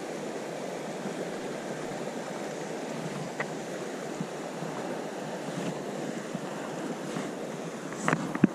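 River current rushing steadily over a shallow rocky riffle, with a couple of light knocks near the end.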